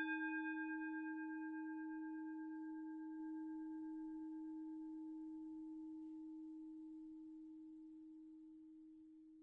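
Singing bowl ringing on after a single strike: one low tone with fainter higher overtones, slowly fading away with a slight pulsing.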